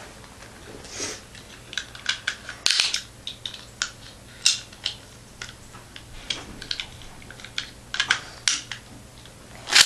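Irregular light clicks and taps of small plastic toy parts being handled: Beyblade pieces fitted together.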